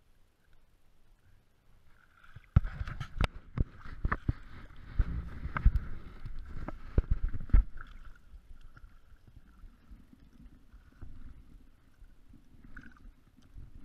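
Shallow water splashing and sloshing, with a run of sharp knocks and bumps from about two and a half seconds in to about eight seconds, then quieter swishing as a hand lowers a small barracuda into the water.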